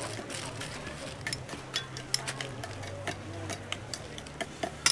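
Irregular sharp clicks and crackles at no steady rhythm, over a steady low hum.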